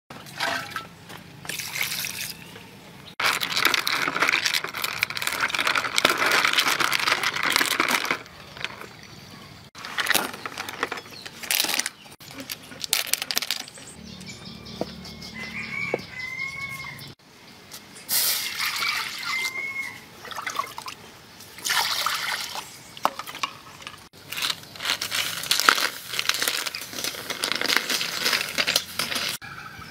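Water splashing and cockle shells clattering in several separate bursts as the cockles are handled in a basin of water and stirred in a wok of cooking water. In a quieter stretch midway, a wood fire crackles and chickens call briefly.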